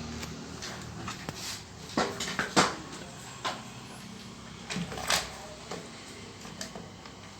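Scattered light clicks and knocks of small tools and parts being handled on a workbench, irregularly spaced, about eight in all.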